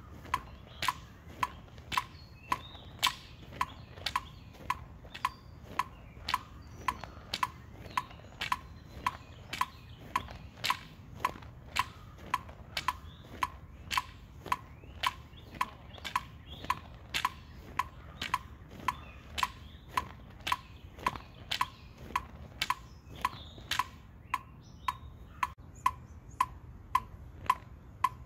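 Metronome clicking steadily at about two beats a second.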